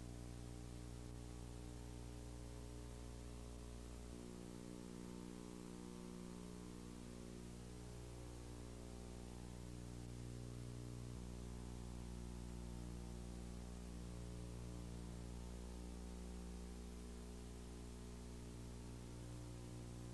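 Steady electrical mains hum with an even background hiss, the buzz of an old video recording's soundtrack.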